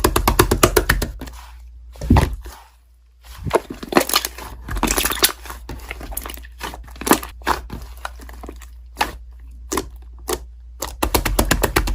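Slime being squeezed and pressed by hand, making crackling pops and clicks. They come in rapid runs at the start and near the end, with scattered single pops between.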